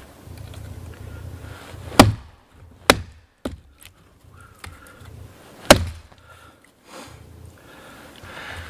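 Hultafors Hultan hatchet chopping into a dead branch about an inch and a half thick: a handful of sharp chops into the wood, the loudest about two seconds in and just before six seconds.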